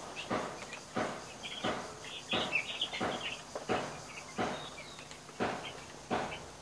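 A run of soft taps, roughly one a second, with a few faint high chirps a little over two seconds in.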